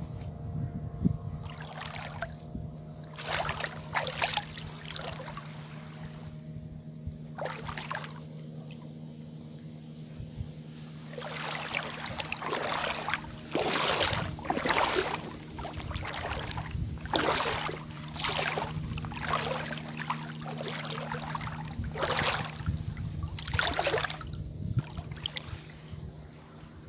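Feet wading through shallow seawater over a rocky reef flat, each step a short splashy swish, coming about once a second from midway. A steady low hum runs underneath.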